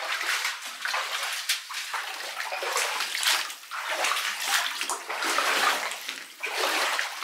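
Boots wading through shallow standing water, sloshing and splashing with each step.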